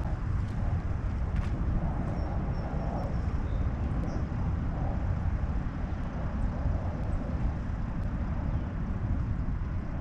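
Outdoor lakeside ambience: a steady low rumble throughout, with a few faint, brief bird chirps a couple of seconds in.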